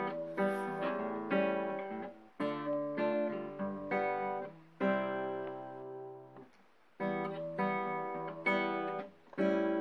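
Background music: an acoustic guitar strumming chords, each one ringing out and fading, with a short pause a little past the middle.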